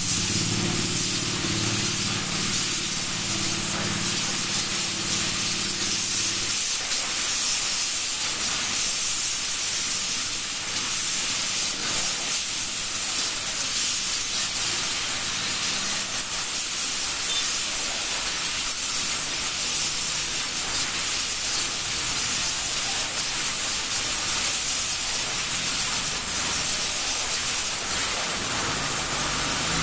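Steady hiss of spraying water, even and unbroken, with a low hum underneath for the first six seconds or so.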